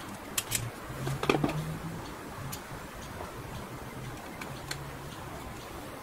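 Light plastic clicks and taps as an Isuzu D-Max's electric-window switch panel and door trim are handled and fitted back into the door: about half a dozen sharp ticks spread irregularly over a few seconds.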